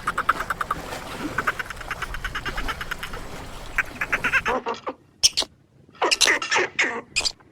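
Animal calls: a fast run of short calls repeated several times a second, then, after a sudden change of background, a few separate calls, each falling in pitch.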